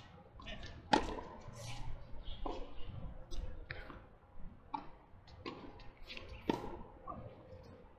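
Tennis ball struck by rackets and bouncing on a hard court during a rally: about six sharp pops at irregular intervals of roughly a second, the loudest about a second in.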